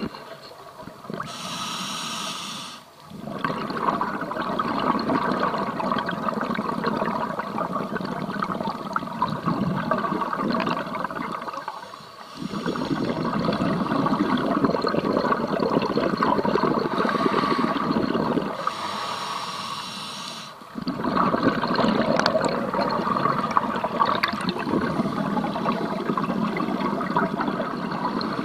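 Scuba diver breathing through a regulator underwater. A short hiss of inhalation comes near the start and again about two-thirds of the way through, each followed by a long stretch of exhaled bubbles.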